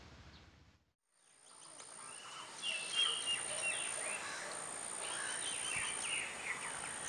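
Near silence for about the first two seconds, then faint outdoor ambience with birds chirping and a steady thin high-pitched tone behind them.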